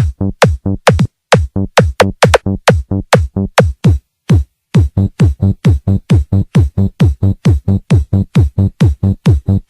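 Electronic dance music: a rapid, even run of heavy bass kicks, each dropping sharply in pitch, with a short drop-out about four seconds in before the beat comes back.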